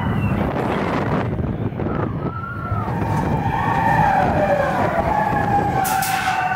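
Mine-train roller coaster rumbling along its track, with riders screaming and whooping in long wavering cries that grow louder about halfway through. A brief sharp noise about six seconds in.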